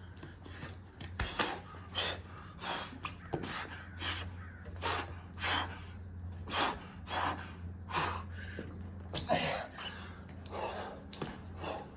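A man breathing hard from the exertion of burpees: rapid, loud gasping breaths in and out, about every half second.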